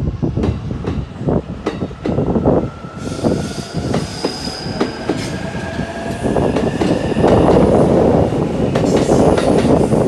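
JR East E233 series 3000 and E231 series 1000 electric commuter train pulling out of a station. Its wheels click over rail joints in the first few seconds, then a whine from the traction motors rises slowly in pitch as it gathers speed. From about seven seconds in, the rushing noise of the passing cars grows louder.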